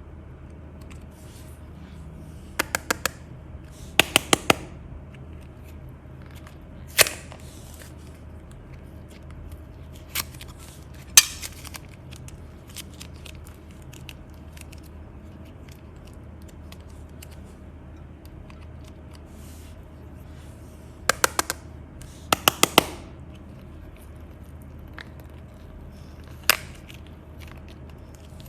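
Sharp clicks, some in quick runs of three or four and some single, over a steady low hum.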